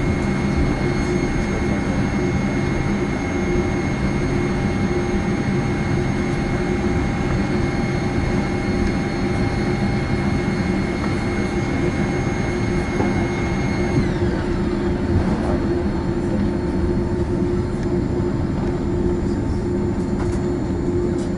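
Steady cabin rumble of a Boeing 787-8 taxiing, with high whining tones over it. About two-thirds of the way through, the highest whine glides down in pitch and fades.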